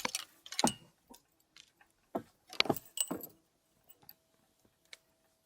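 A few scattered clicks and light metallic clinks of fishing tackle being handled, as a snagged line is worked free.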